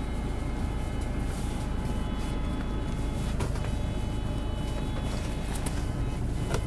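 Isuzu Erga PJ-LV234L city bus running under way, heard from inside the cabin: a steady diesel engine and drivetrain rumble with a steady high whine over it. A couple of short clicks or rattles come about three and a half and six seconds in.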